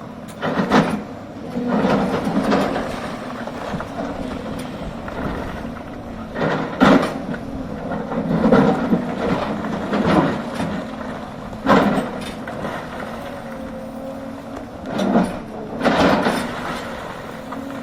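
Hidromek excavator's diesel engine working under load, with loud metallic clanks and scrapes every one to four seconds as the machine works, and a hydraulic whine rising and falling near the end.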